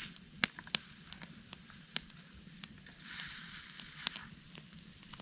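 Campfire crackling, with irregular sharp pops, the loudest about half a second in and again about four seconds in.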